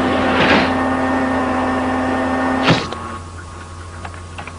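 Cartoon sound effect of a medical body scanner running: a steady electric hum with a whooshing swell about half a second in, ending with a sharp clunk a little before three seconds in. After it the sound drops and faint clicks follow.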